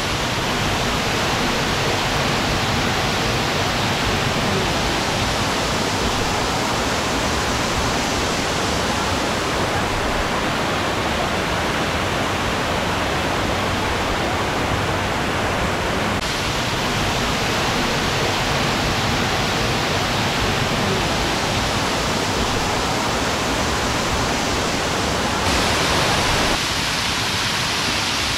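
Steady rushing and splashing of a man-made waterfall pouring into a pool close by. It shifts slightly in tone a few times.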